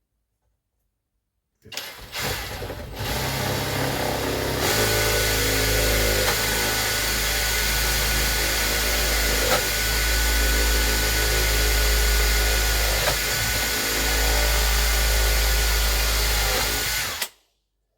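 Power drill turning a hole saw, cutting a hole in the RC boat for the hatch latch. It starts about two seconds in, comes up to a steady full-speed whine within a few seconds, and cuts off shortly before the end.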